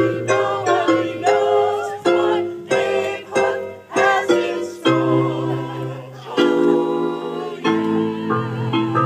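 Small group of singers performing a song in unison to digital piano accompaniment, with chords struck about twice a second and some long held notes partway through.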